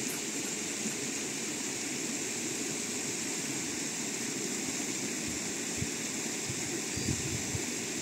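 Steady rush of flowing river water, with a few soft low thumps near the end.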